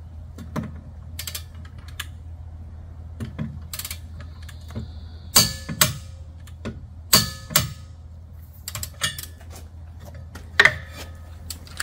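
Socket wrench working the propeller nut on a Mercury Racing outboard's stainless prop, braced with a wooden block: a dozen or so irregular metal clicks and knocks, a few ringing briefly, over a steady low hum.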